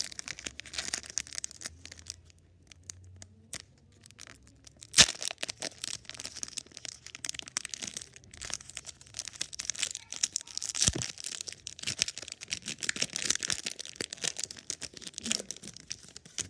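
Foil Pokémon booster pack wrapper being torn open and crinkled by hand, a dense crackle with a quieter stretch and one sharp crack about five seconds in.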